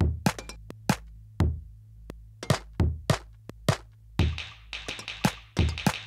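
Lo-fi electronic beat: a sampler plays a loose pattern of found-sound drum hits over a steady low bass drone. About four seconds in, a busier, hissy layer of quick hits joins.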